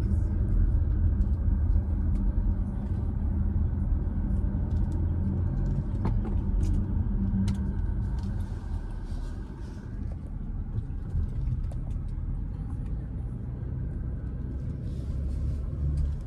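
Car road and engine noise heard from inside the cabin while driving: a steady low rumble that eases a little about halfway through.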